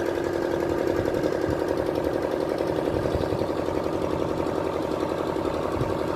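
Engine running steadily at an even speed, with a fast, regular pulsing beat over a held tone.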